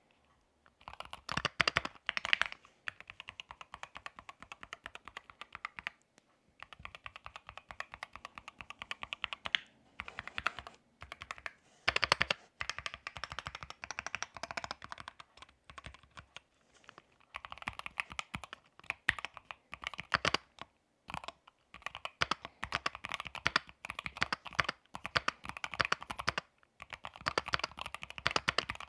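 Typing on a modded Keychron Q1 HE, a Hall-effect (magnetic switch) mechanical keyboard: fast runs of keystroke clicks broken by short pauses, with a few louder single strikes.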